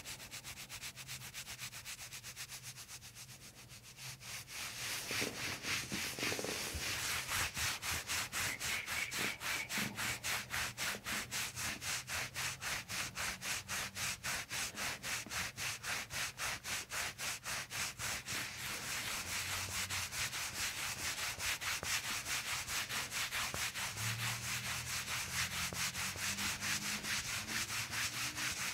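Hands rubbing briskly over a person's upper back through a thin top during a soft-tissue massage of back knots. The strokes come in a quick, even rhythm of about four a second, faint at first and louder from about four seconds in.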